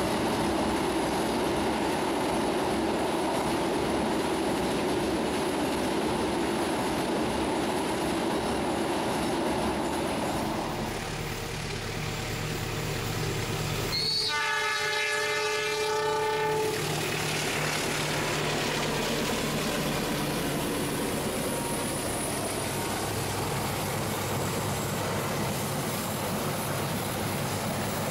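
KAI passenger train's wheels running over a steel truss bridge. A diesel locomotive's horn then sounds once for about two and a half seconds, near the middle, followed by the steady noise of the train's engine and wheels as it comes round the curve.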